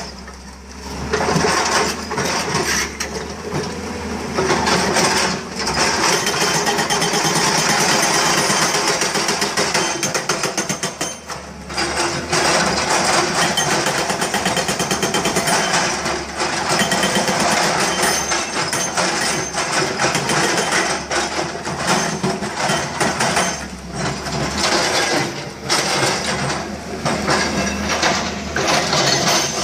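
Volvo 210 excavator at work: a loud, fast, continuous hammering clatter over a low engine hum, easing off briefly a few times.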